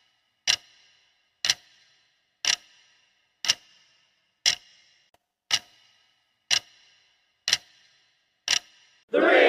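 Countdown-timer clock ticking: a sharp tick once a second, each with a short ringing tail, marking off the seconds of a rest countdown. Right at the end a loud burst of sound cuts in.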